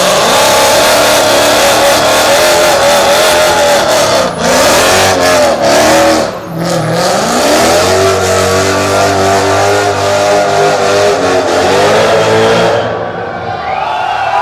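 Mercedes-AMG car accelerating hard, its engine revving loud. The pitch climbs and drops sharply twice in the first half, as in quick gear changes, then climbs in one long steady pull before the driver eases off near the end.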